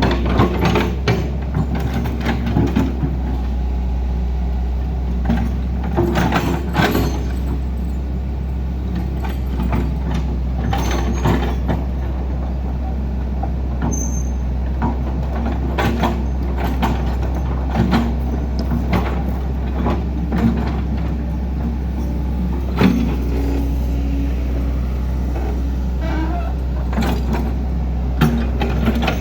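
Heavy diesel machinery running with a steady deep rumble, punctuated by frequent irregular knocks and clanks.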